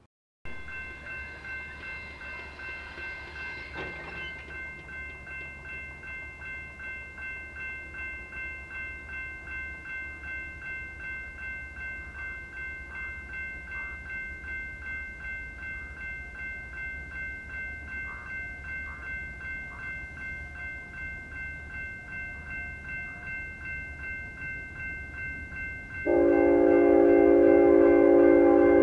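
Railroad grade-crossing bell ringing steadily with even strokes as a train approaches. About 26 seconds in, the BNSF freight locomotive's multi-chime horn sounds, loud and held.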